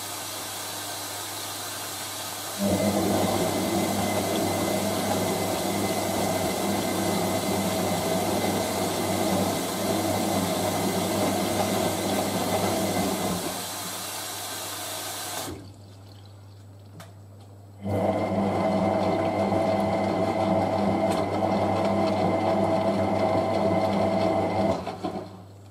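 Hotpoint 9530W front-loading washing machine on its final rinse: water hisses steadily into the machine and cuts off sharply about fifteen seconds in. Meanwhile the motor turns the drum of wet towels in two spells of about ten and seven seconds, with a short pause between, under a constant low hum.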